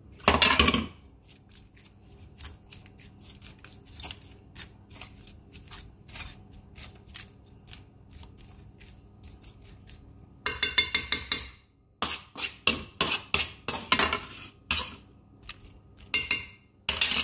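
Metal spoon clinking and scraping against a bowl and dish while sauce is spooned and spread over chicken. The sound is sharp, scattered clicks, with a dense run of rapid scrapes about ten seconds in and clusters of clinks toward the end.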